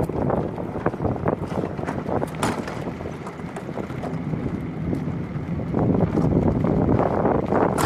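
Wind buffeting the microphone of a camera riding on a moving land yacht, over the rumble of its wheels on concrete, with frequent small knocks and rattles. It gets louder about six seconds in.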